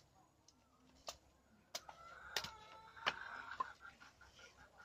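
A bolo chopping through wooden poles: about five sharp strokes, roughly two-thirds of a second apart. A faint high call sounds in the middle.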